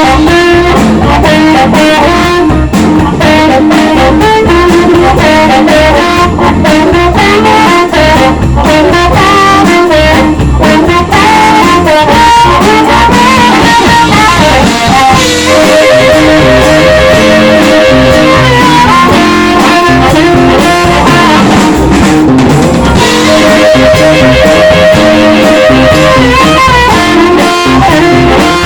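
A live blues band playing an instrumental with electric guitar, bass, drums and amplified harmonica. Partway through, and again later, steady held notes come in.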